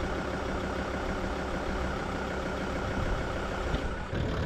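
Vehicle engine running steadily.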